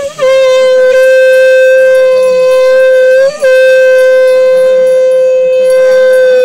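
Conch shell (shankh) blown in one long steady note, breaking briefly about three seconds in and then held on, as at a Hindu wedding ritual.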